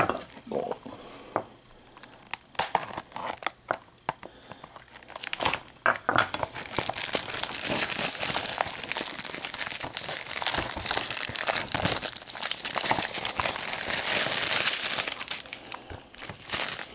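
Clear plastic shrink-wrap being torn and peeled off a Blu-ray case, crinkling and crackling: scattered crackles at first, then dense continuous crinkling from about six seconds in until near the end.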